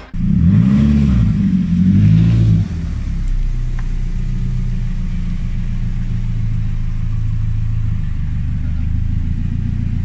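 Nissan Silvia S15's SR20 engine revved up and down twice in the first couple of seconds, then settling into a steady idle.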